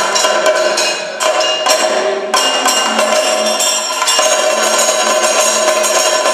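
Kathakali percussion accompaniment: a chenda drum beaten rapidly with sticks, over ringing metal cymbals and gong that keep sounding between the strokes.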